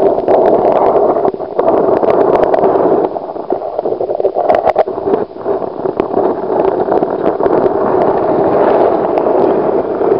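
Stream water heard underwater through the camera: a loud, steady gurgling hiss of the current with scattered small clicks, starting abruptly as the clip begins.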